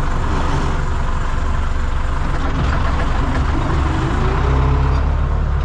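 Tractor diesel engine running, heard from inside the cab while driving, its pitch rising a little about four seconds in as it revs up.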